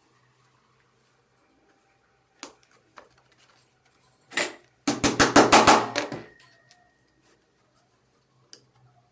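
Wooden pieces being handled during assembly: a few sharp clicks, a short knock, then a rapid run of loud knocks and clatter, about eight a second, lasting a second and a half.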